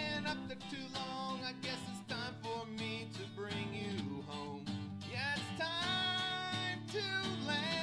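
Background music: a country-style song with guitar, in a passage where no words are sung.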